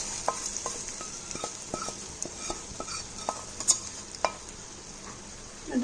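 Chicken roast curry sizzling in a frying pan with scattered small pops and crackles, from hot oil with fried dried red chillies and curry leaves just poured over it; the hiss slowly fades.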